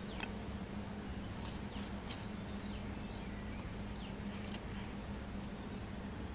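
An egg-and-onion scramble sizzling in a pan over a wood fire, with a few sharp crackles from the burning wood. Short high chirps of small birds come and go.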